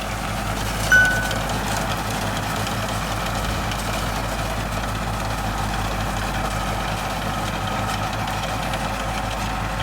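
International 784 tractor's diesel engine running steadily, with a brief high squeak about a second in.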